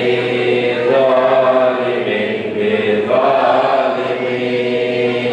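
Many men's voices chanting together in unison inside a mosque, drawn out in long held phrases of one to two seconds.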